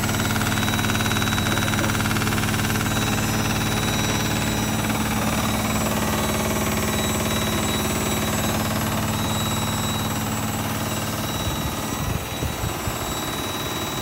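Logik L712WM13 front-loading washing machine on a fast spin, a loud steady drone with a low hum; about twelve seconds in the steady drone breaks up into irregular low knocks and thuds. The uploader describes this machine as banging and very noisy at 1200 rpm, not spinning balanced like other machines.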